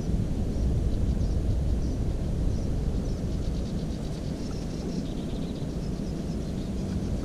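Wind buffeting the microphone in a steady low rumble, with faint, scattered high bird chirps and twitters running through it, thickest in the middle.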